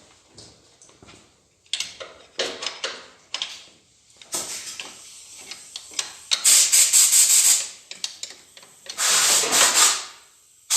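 Hand-tool work on the cylinder head of a Kia/Hyundai G4NA engine during teardown: rubbing and scraping noises in irregular bursts. The loudest stretch, about six and a half seconds in, has a quick run of strokes, and another comes about nine seconds in.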